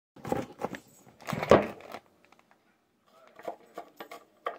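Kitchen knife mincing garlic on a wooden cutting board: a string of knocks and taps, loudest in the first two seconds, with one heavy knock about a second and a half in, then fainter quick taps near the end.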